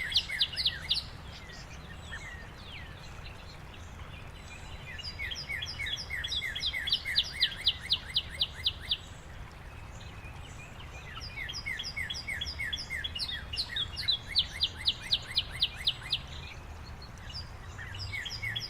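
A songbird singing outdoors: about three phrases of quick, evenly repeated short downslurred whistled notes, each phrase a few seconds long, over a steady low background rumble.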